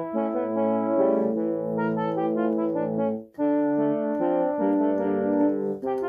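Yamaha PSR-60 home keyboard played on a brass preset, chords and a melody in a horn-like voice with no reverb added. There is a short break in the playing about three seconds in.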